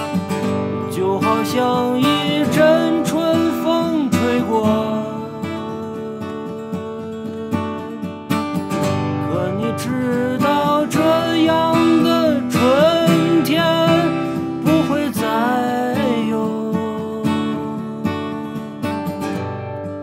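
Gibson J-45 acoustic guitar strummed through a folk song, with a man's voice singing a melody over it for much of the time. The voice drops out near the end, leaving the guitar alone.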